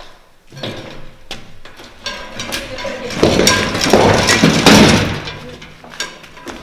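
A loud crash and clatter of metal and debris with a metallic ring, lasting about two seconds from about three seconds in. Scattered knocks and steps on the littered floor come before it.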